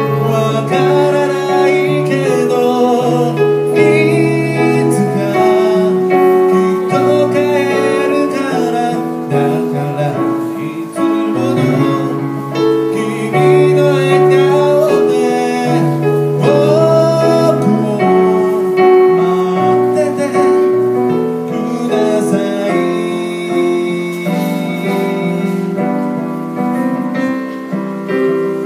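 A female singer performing a slow song live, accompanied on electric keyboard and played through PA speakers, with held, wavering vocal notes over steady chords.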